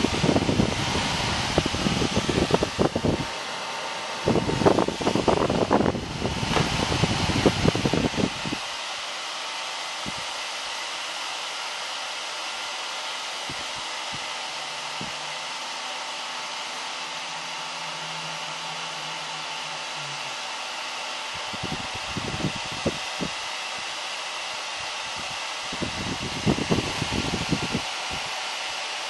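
Dyson Air Multiplier bladeless fan base running with its loop removed: the motor and impeller inside the base give a steady, even rush of air out of the open top. Uneven low rumbling comes over it for the first eight seconds or so and again for a few seconds near the end.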